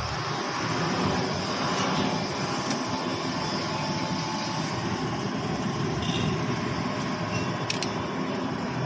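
Steady mechanical rumble of a running machine, with a sharp click near the end.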